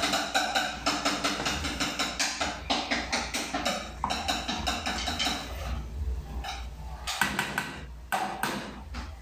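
Plastic spatula stirring ground beef in a frying pan: quick repeated scrapes and taps against the pan, several a second, easing off after about six seconds, with a few separate knocks near the end.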